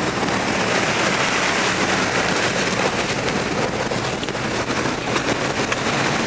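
Four-wheel-drive vehicle driving through floodwater: the engine runs under a steady rush of splashing water.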